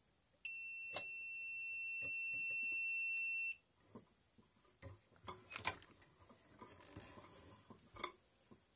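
Heat press timer beeper sounding one steady, high-pitched beep for about three seconds, signalling the end of the 5-second press. After it, the press is opened with clicks, knocks and rustling.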